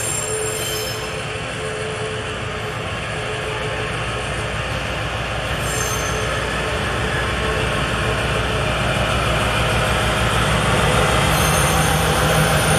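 Slow freight train of box vans and flatcars rolling over the rails while turning onto a station siding. The wheels rumble steadily, with high flange squeals from the curve near the start, about six seconds in and again near the end. The rumble grows louder and a lower hum joins it as the locomotive draws close.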